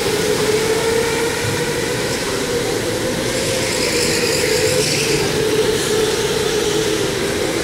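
Electric go-kart motors whining as the karts race past, a steady whine that drifts slightly in pitch over a constant hiss.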